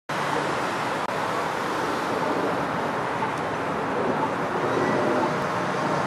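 City street traffic noise: a steady wash of cars and a van driving past on the road, with a brief dropout about a second in.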